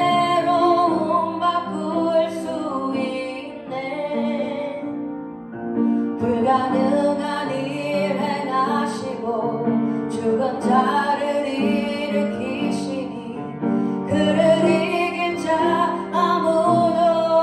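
A woman singing a Korean worship song into a microphone over instrumental accompaniment, with a short break in the singing about four seconds in.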